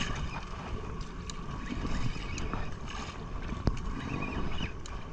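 Wind on the microphone and sea noise aboard a small boat, with faint scattered clicks as a spinning reel is wound in.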